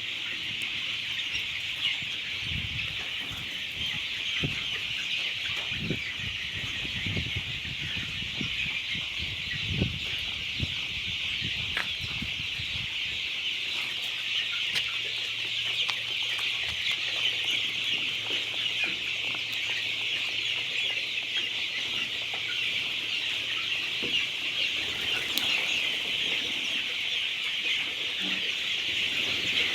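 A large flock of desi chickens clucking and chattering together in a dense, unbroken chorus, with a few low thumps in the first half and a faint steady hum joining about halfway through.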